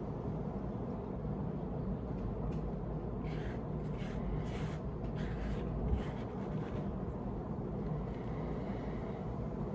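Soft rustling as loose, finely chopped pipe tobacco is pressed into a briar pipe bowl with the fingers, a handful of short rustles between about two and six seconds in, over a steady low background rumble.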